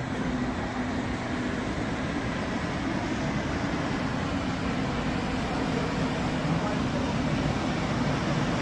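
Steady road traffic noise from a city street, an even rush of passing vehicles, with a faint low hum that fades out about two seconds in.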